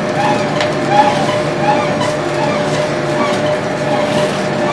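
Four-outlet charcoal extrusion press running steadily: a constant motor and machine hum with a steady tone over it. Extruded charcoal sticks knock into plastic crates now and then.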